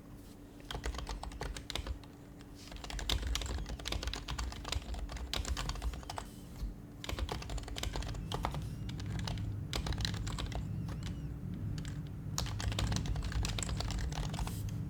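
Typing on an HHKB Professional HYBRID Type-S keyboard, its silenced Topre keys clacking in quick runs, with brief pauses about two seconds in and again around six to seven seconds.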